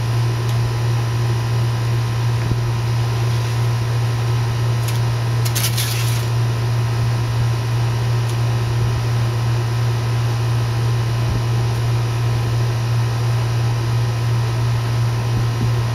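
A steady low mechanical hum, like a fan or air-conditioning unit running, at an even level throughout. About five and a half seconds in there is a brief scratchy hiss.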